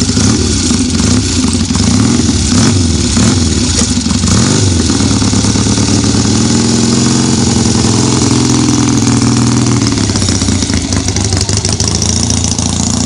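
Norton motorcycle engine running loud, blipped up and down a few times over the first several seconds, then revving higher as the bike pulls away.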